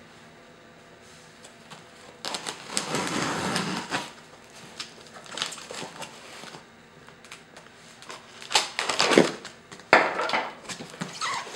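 Packing tape on a cardboard box being cut with a small knife and pulled off, with the cardboard scraping and crackling, in several separate bursts of noise, the longest about two seconds in.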